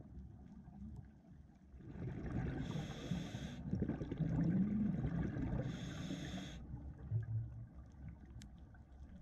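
Scuba diver breathing through a regulator underwater, heard through the camera housing: a low murmur under a steady rumble, with two hissing bursts of exhaled bubbles about three seconds apart.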